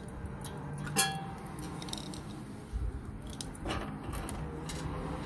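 A metal part or tool clinks sharply once about a second in and rings briefly, followed by lighter clicks and handling noises while small-engine parts are worked on.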